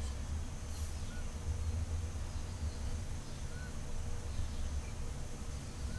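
Low steady rumble with a few faint, short bird chirps, about a second and three and a half seconds in.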